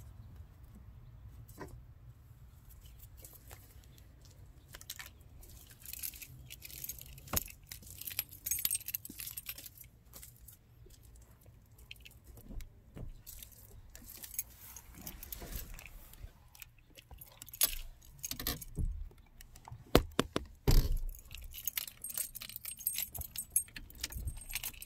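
Car keys jangling, with scattered clicks, rustles and knocks of handling in and around the driver's seat; the sharpest knocks come about 17 to 21 seconds in. The engine is not yet running.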